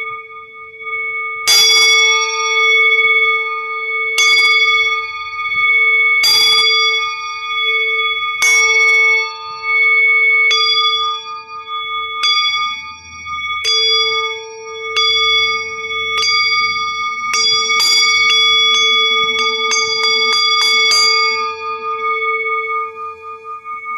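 Metal singing bowl struck again and again, each strike leaving a long ringing tone with a slow pulsing wobble. Strikes come every second or two, then a flurry of quick strikes near the end before the ring dies away.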